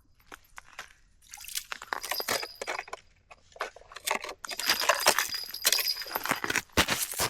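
Clinking and clattering of small hard objects: many sharp clicks in two busy spells, the second longer and louder.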